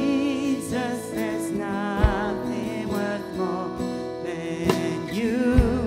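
Live worship band music: strummed acoustic guitar with bass, keyboard and drums, and a sung melody over it. Two low kick-drum thumps land about two seconds in and near the end.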